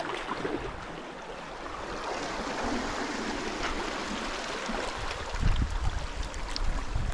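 Water rushing and splashing among rocks, a steady noisy wash; a deeper low rumble joins it about five seconds in.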